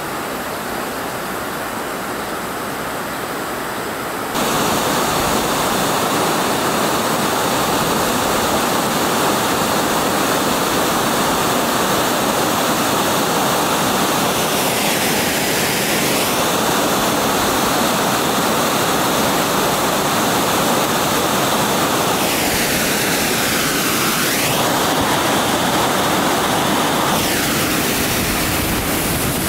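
Vloman Kill waterfall: white water pouring over a rock ledge, a steady, loud rush that steps up louder about four seconds in.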